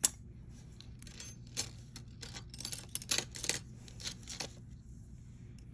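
Small pieces of costume jewelry clinking and clicking as they are handled and set down: about a dozen light, sharp taps, the sharpest at the very start and a quick cluster in the middle.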